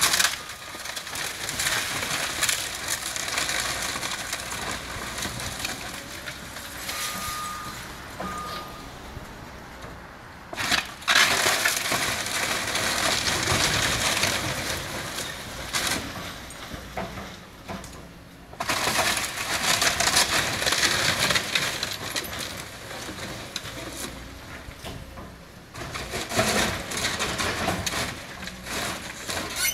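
A brick shop building being demolished: timber, brick and glass debris crunching and crashing in loud spells as the structure is torn down. A reversing alarm gives two short beeps about seven seconds in.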